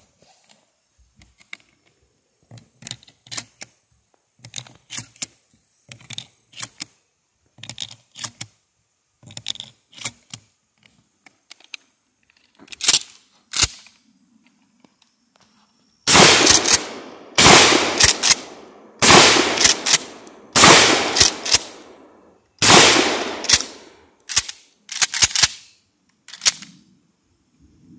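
Mossberg 835 Ulti-Mag 12-gauge pump-action shotgun. First come light paired clicks, with a louder pair about 13 seconds in. Then, from about 16 seconds, a string of about seven loud shots, each in a pair of cracks half a second apart with a ringing tail.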